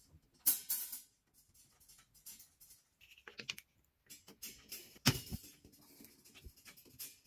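Clicks, knocks and rattles from handling an LTW Supreme 3-tier clothes airer and fitting a plastic coat hanger attachment onto the end of its tubular top rail, irregular throughout, with the loudest sharp knock about five seconds in.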